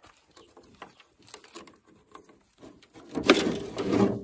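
Plastic water bottles clicking and knocking as they are handled, then, about three seconds in, a loud rush of water poured from a bottle into a plastic IBC tank.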